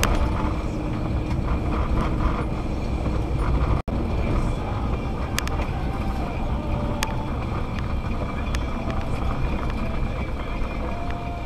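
Car driving on a wet, flooded road, heard from inside the cabin: steady engine and tyre noise with a few sharp ticks. There is a brief dropout about four seconds in where the recording cuts.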